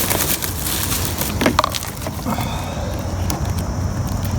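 Plastic water bottles being handled, giving scattered clicks and crinkles over a steady background hiss.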